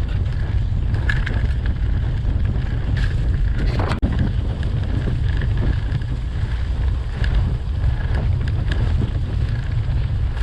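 Wind rumbling on an action camera's microphone while riding a bike off-road, with scattered faint rattles and clicks from the bike.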